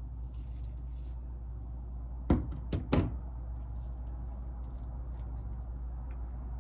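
Three quick knocks close together, over a steady low hum.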